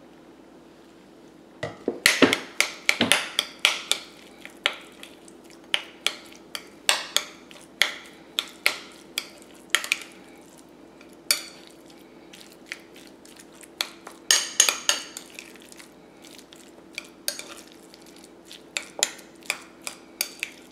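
Metal utensil clinking and scraping against a ceramic bowl as diced raw tuna is stirred into spicy mayo and sriracha. Irregular sharp clinks, roughly one or two a second, start about two seconds in, with quicker flurries near the start and around the middle.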